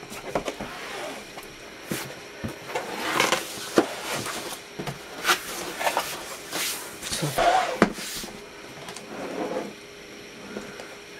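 Cardboard packaging being handled on a table: a corrugated shipping box slid, shifted and set down, giving an irregular string of short scrapes, rustles and knocks.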